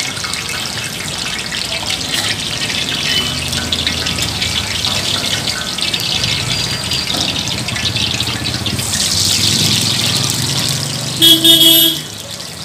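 Hot oil sizzling in a kadai as jalebis fry, a steady hiss. Just after eleven seconds a loud horn-like tone sounds briefly.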